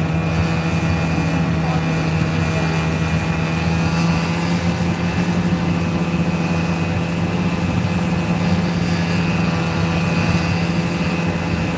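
Snowmobile engine running at a steady cruising speed, a constant drone that neither rises nor falls.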